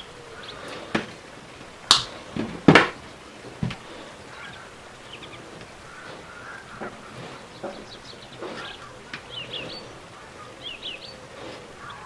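Hands working a rubber hose onto copper tubing: a few sharp clicks and knocks in the first four seconds, then quieter rubbing with short high squeaks of rubber on copper.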